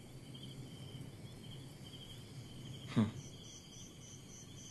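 Crickets chirping in even trains of short, high chirps, with a second, higher-pitched cricket chirping faster from about three seconds in. One brief sound with a falling pitch about three seconds in.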